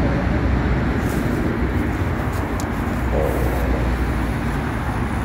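Steady noise of busy main-road traffic, a continuous low rumble of passing vehicles.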